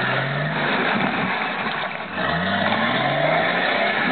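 Off-road 4x4's engine revving hard under load as it churns through a deep mud hole, with the wash of mud and water under the spinning wheels. The revs sag briefly and then climb again a little after two seconds in.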